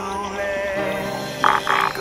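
Background music from a song: a quieter passage with a held, wavering melody line and two short bright accents near the end.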